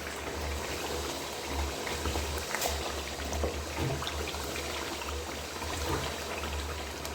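A pot bubbling steadily on the stove, with a low hum underneath and a few light clicks.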